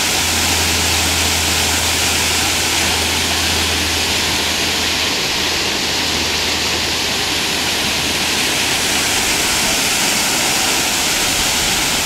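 Waterfall pouring into a rock pool: a steady, loud rushing of falling water. A low rumble sits underneath it until it fades out about nine seconds in.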